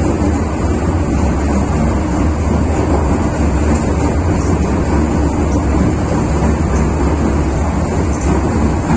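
MTR Tsuen Wan Line M-Train running between stations, heard from inside the car: a steady, loud rumble of wheels on rail and running gear, with a constant low hum underneath.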